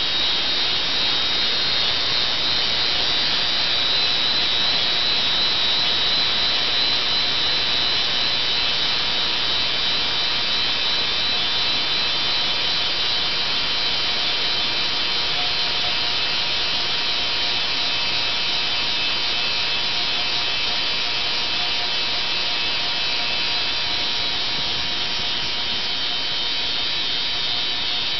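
40 kHz ultrasonic cleaning tank running with alkaline detergent, its bath cavitating around a submerged hydraulic filter: a steady high-pitched hiss with faint steady tones beneath.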